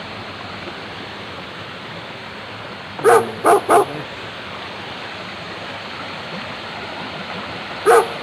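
A dog barking: three quick barks about three seconds in and three more near the end, over a steady hiss.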